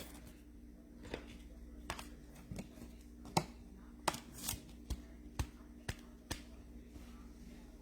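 Baseball trading cards being handled and sorted by hand: about ten light, sharp clicks and taps at uneven intervals, over a faint steady hum.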